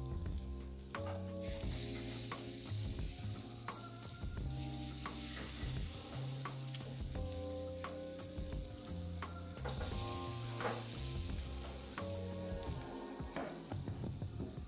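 Chicken pieces sizzling on a grill over charcoal, a hiss that sets in about a second and a half in, under background music with a stepping bass line and held melody notes.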